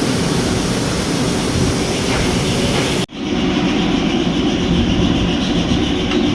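Ford Ranger 2.2L engine running loudly, the engine with the knocking the video is about. The sound cuts off abruptly about three seconds in and resumes duller and lower.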